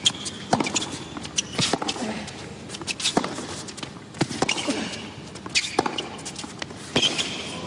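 Tennis rally on a hard court: racquet strikes and ball bounces, sharp pops coming about every second and a quarter.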